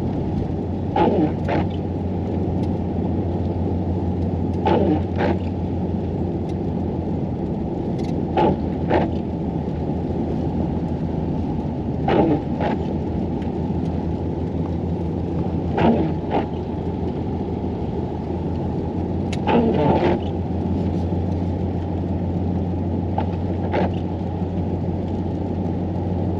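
Vehicle driving on a snowy highway, heard from inside the cab as a steady low engine-and-road drone. Over it come paired swishes about half a second apart, repeating about every 3.7 s, in the rhythm of windshield wipers on an intermittent setting.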